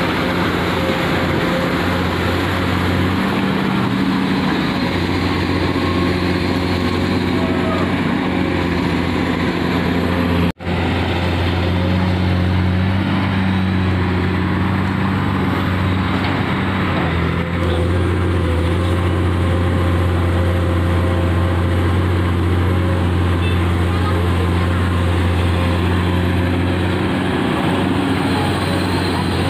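Komatsu PC200 amphibious excavator's diesel engine running steadily under working load as the arm digs and lifts mud, its drone shifting slightly in pitch a few times. The sound cuts out for an instant about ten seconds in.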